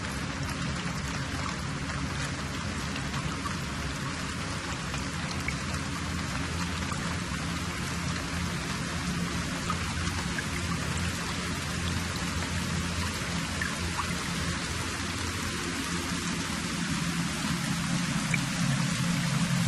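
Steady rain-like hiss with a low hum beneath it, rising slightly in level near the end.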